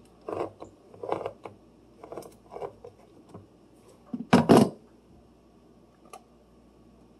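Hand-held crank can opener cutting round the rim of a tin can, in short turns about a second apart. About four and a half seconds in comes a loud double clack.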